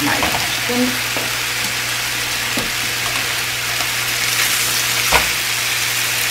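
Chicken breasts sizzling steadily as they brown in nonstick frying pans. Short clicks come about two and a half seconds in and, louder, about five seconds in, as metal tongs turn a piece in the pan.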